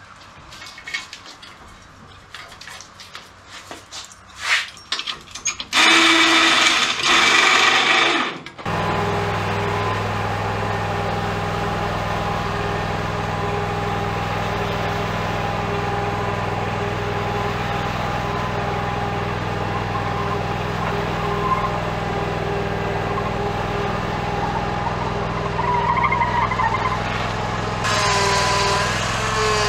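Tools clattering on a metal mower frame, then a few seconds of loud noise. From about eight seconds in, a Scag zero-turn mower engine runs steadily, getting louder near the end.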